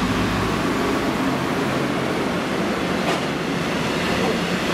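Class 60 diesel freight locomotive passing close by with its engine running, followed by its freight wagons rolling steadily over the rails.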